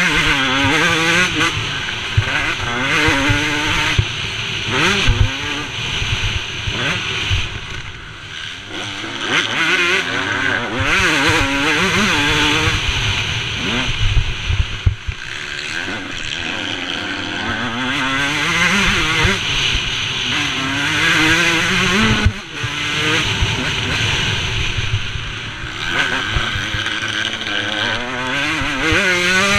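Motocross bike engine revving hard, its pitch climbing and dropping again and again as the rider accelerates through the gears and eases off, heard from the rider's helmet camera.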